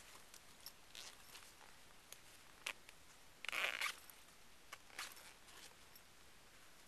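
A cloth bag being handled: light rustling and scattered clicks, with one short rasping burst, the loudest sound, about halfway through.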